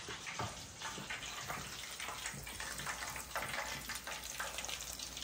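Fish steaks frying in a pan of hot oil: a steady sizzle with fine crackling.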